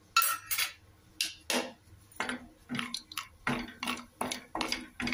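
Wooden spatula stirring cashews frying in ghee in a non-stick pan, scraping and knocking against the pan in a quick run of strokes, about two or three a second.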